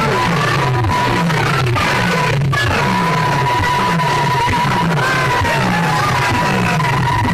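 Loud music played through a tall stack of horn loudspeakers. A bass line of falling notes repeats about twice a second under a long, slightly wavering melody line.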